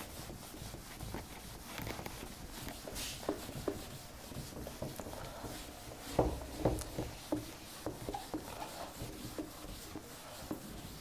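A handheld duster rubbing across a whiteboard as marker writing is wiped off: a run of short wiping strokes, with the most distinct strokes from about six seconds in.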